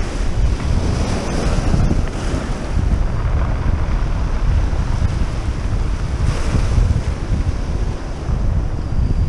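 Wind buffeting the microphone in a steady low rumble, with small waves washing onto a pebble beach, surging in about two seconds in and again past the middle.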